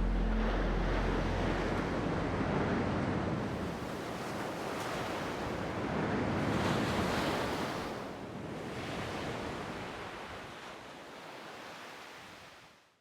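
Ocean surf washing in and receding in slow swells, gradually fading out to silence at the end.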